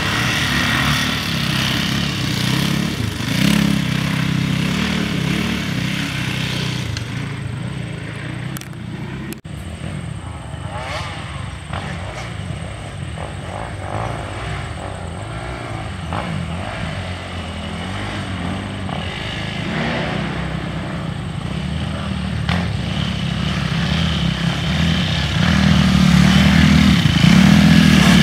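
Dirt-bike engines revving as the bikes ride along an off-road trail, faint at first and growing louder near the end as several bikes come close.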